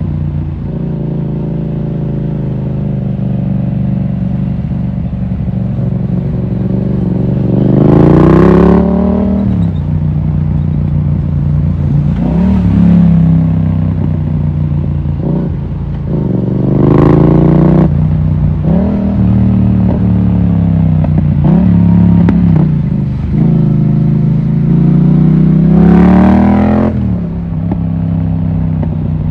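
Yamaha MT-07's parallel-twin engine running under way, its pitch climbing and then dropping sharply at a gear change three times, roughly every nine seconds.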